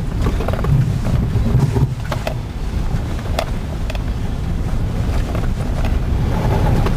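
Honda Element heard from inside the cabin on a rutted, slushy dirt road: a steady low rumble of engine and tyres, with scattered knocks and rattles as the car jolts over the ruts.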